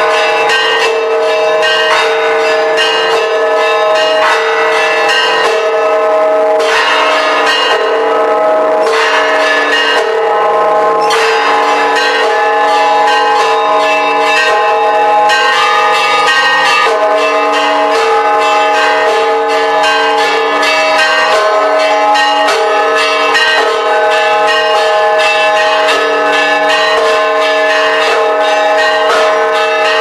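Church bells of the Church of the Holy Sepulchre in Jerusalem ringing a continuous peal: several bells struck in quick succession, their tones overlapping and ringing on.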